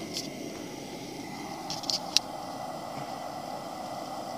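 Steady low background hum with a few small clicks, the sharpest about two seconds in.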